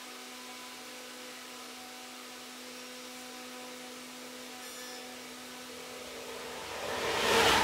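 A steady hum with a few even overtones. Near the end a loud rush of noise swells up.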